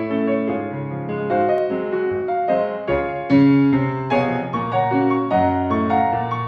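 Piano music accompanying a silent film, playing a melody over changing chords.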